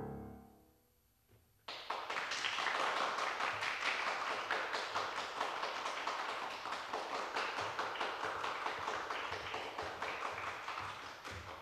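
A Steinway grand piano's final chord dies away, and after a moment of silence an audience breaks into applause, which runs on steadily and begins to fade near the end.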